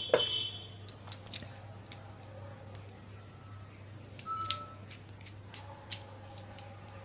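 Scattered metal clicks and clinks of a bearing puller being handled and fitted onto a ceiling fan's ball bearing, with a short ringing clink in the first second and the loudest click about four and a half seconds in.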